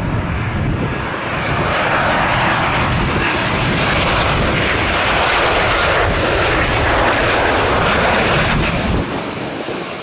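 Boeing 737 jet engines roaring on landing approach, swelling over the first couple of seconds and holding steady, with gusty wind buffeting the microphone; the sound eases a little about nine seconds in.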